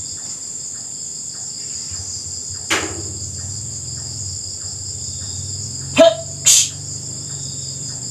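Night insect chorus, crickets chirring steadily at a high pitch. A few short sounds from close by break over it: a brief noisy sweep about three seconds in, then a sharp click and a short burst of noise about six seconds in.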